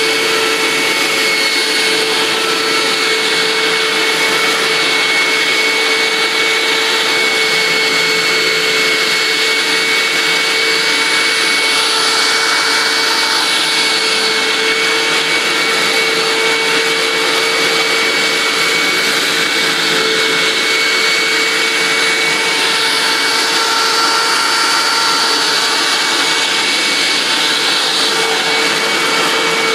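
Hoover WindTunnel upright vacuum cleaner running steadily at full speed: a constant motor whine over the rush of air.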